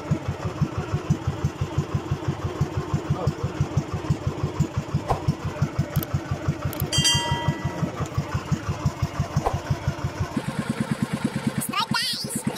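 Outrigger boat's inboard engine chugging steadily at about six beats a second. A short electronic chime sounds about seven seconds in.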